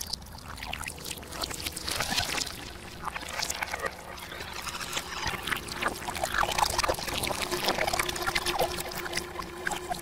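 Milk pouring and spreading, with dense wet crackling and bubbling. A low steady tone comes in a little past the middle.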